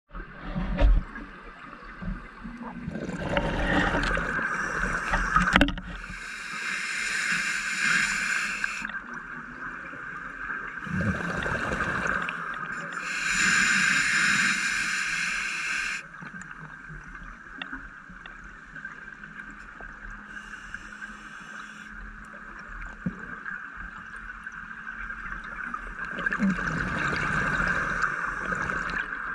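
Scuba diver breathing underwater through a regulator: exhaled bubbles rushing out in bursts of about three seconds, repeating about every seven seconds, with a steady hiss between them and a few low knocks in the first seconds.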